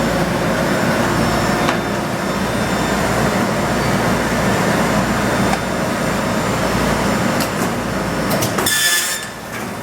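Duplo Quadrimax II four-clamp perfect binder running steadily with its dust collector. Near the end there is a short mechanical clatter.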